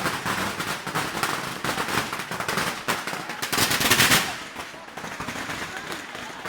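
A long string of firecrackers going off in a rapid, continuous crackle of bangs, loudest a little before the midpoint. It then thins to scattered, quieter pops.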